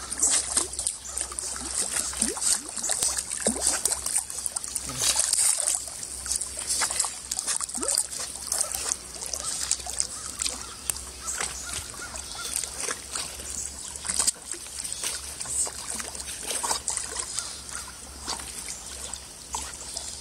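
Water trickling and splashing around a dog swimming, with many small sharp splashes and drips.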